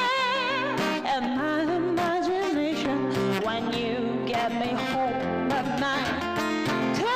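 A woman singing a soul song live into a microphone over guitar accompaniment. She opens on a held note with strong vibrato, then moves into shorter sung phrases.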